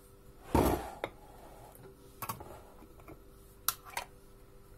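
Metal screw lids and a teaspoon knocking on glass preserving jars as the lids are lifted off and set back on: a dull bump about half a second in, then a handful of short, sharp clicks, over a faint steady hum.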